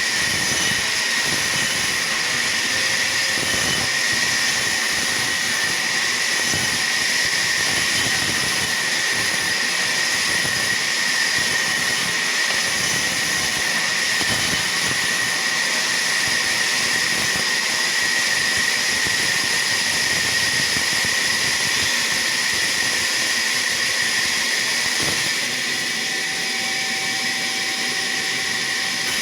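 Sawmill saw running steadily: a constant high whine over a dense hiss, easing slightly near the end.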